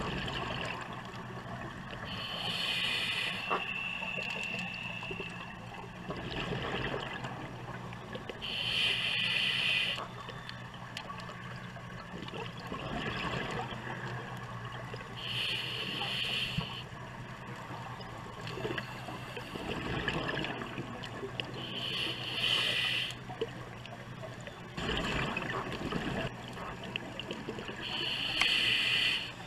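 Scuba diver breathing through a regulator underwater: a regular cycle of a hissing inhale and a bubbling, gurgling exhale, about one breath every six to seven seconds, five breaths in all.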